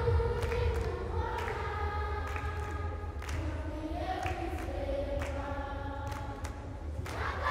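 Choir singing long held notes that step from one pitch to the next, over a steady low rumble.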